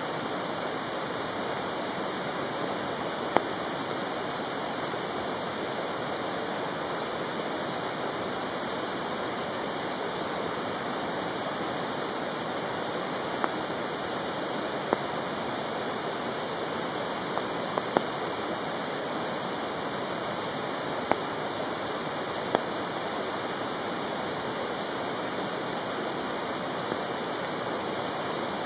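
Mountain stream rushing in a steady, even hiss, with a few short, sharp clicks scattered through it.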